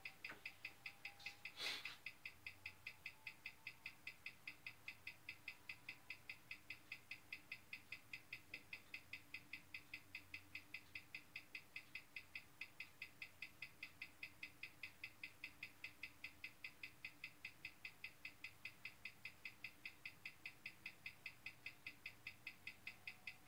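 Hamilton calibre 756 wristwatch movement ticking steadily, about five even ticks a second, with a newly fitted replacement balance running while its rate is timed. One brief knock sounds near the start.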